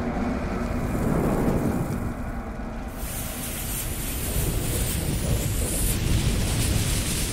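Opening sound effect: a deep, loud rumble like thunder, with a hiss over it that shifts about three seconds in and again about six seconds in.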